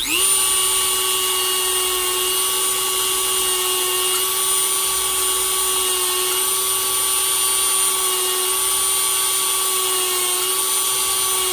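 Dremel rotary tool spinning up and running at a steady high whine as its bit polishes the inside of a silver coin ring, the pitch dipping slightly a couple of times as the bit bears on the metal.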